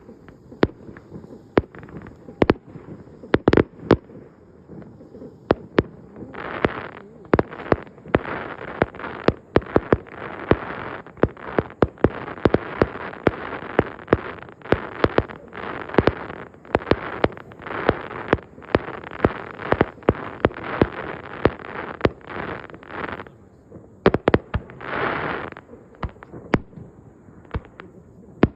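Aerial fireworks going off in rapid succession: many sharp bangs, with dense crackling filling the gaps for most of the middle and a last crackling burst near the end.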